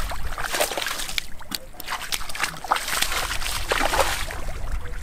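Rubber boots sloshing and splashing through shallow muddy water in irregular wading steps.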